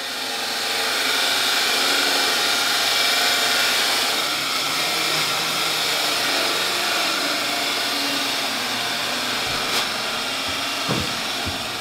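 Steady, loud whirring machine noise of renovation work, fading in at the start and holding evenly, with no clear rhythm.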